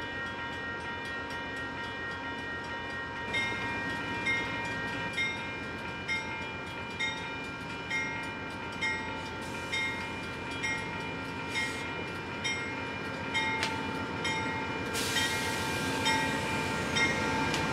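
Bell of an Amtrak GE P42DC Genesis locomotive ringing about once a second as the passenger train rolls slowly into the station, over a steady high-pitched squeal from the train.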